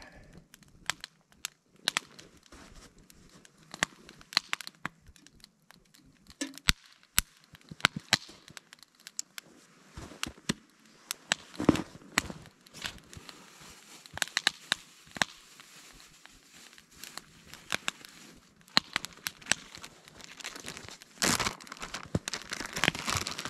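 Wood fire crackling inside split-log bushcraft fire logs, with irregular sharp pops and snaps while the fire draws. Near the end there is a brief stretch of denser rustling.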